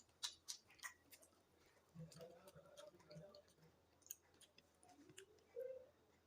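Quiet close-up eating sounds: chewing with a few sharp wet clicks and smacks, most of them in the first second, and a short rising tone from the mouth or throat near the end.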